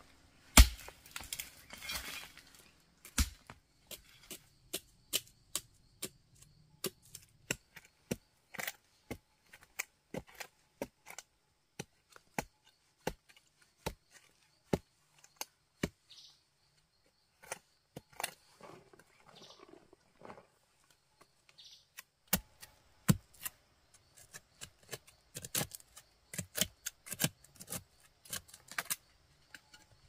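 Short-handled digging tool chopping into earth and roots, sharp separate knocks about two a second, pausing for a while and then coming in quicker clusters near the end, while digging out a yam.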